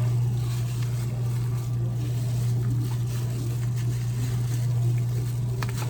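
A steady low hum with faint scattered clicks and a sharper click near the end.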